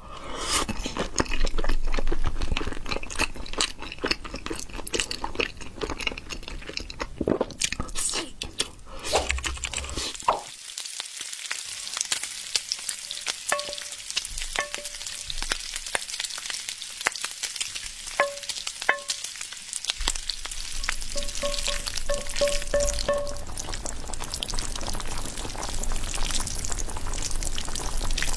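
Food sizzling in a frying pan, with frequent clicks and scrapes from a wooden spatula. In the middle the sizzle dies down, and a few short runs of beeps sound.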